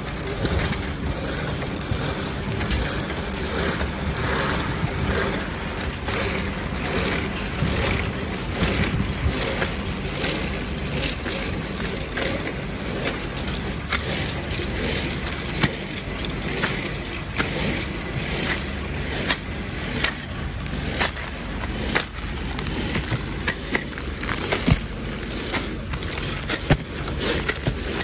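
Soontrue SZ1000 flow-pack wrapping machine running, a steady low drone with frequent sharp clicks and metallic clacks as it wraps metal door hardware in film.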